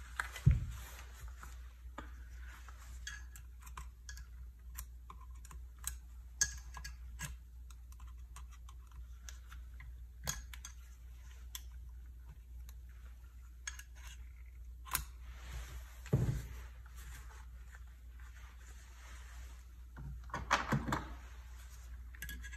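Metal parts of a disassembled pressure washer pump being handled: scattered clinks and knocks of the aluminium housing and internal parts against each other and the bench, with a low thump about half a second in and another about three quarters of the way through.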